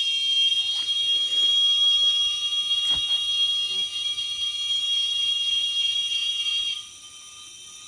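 Insects singing a steady, shrill high-pitched drone that cuts off suddenly nearly seven seconds in, leaving a fainter steady insect hum. There is one short click about three seconds in.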